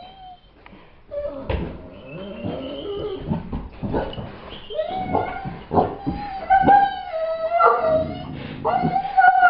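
A dog whining in long, wavering high calls that come thicker and louder in the second half, with scattered knocks among them.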